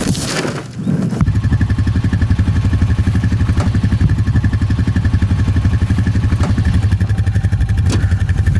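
Four-wheeler (ATV) engine running steadily under way, with a fast, even pulsing beat and a faint high whine. It comes in about a second in, after a brief rustling noise.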